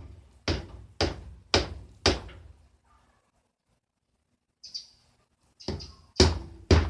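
Repeated sharp knocks, about two a second, then a pause of about two seconds and more knocks near the end: the engine case of a Hensim 250 twin being struck to break it loose for clutch removal.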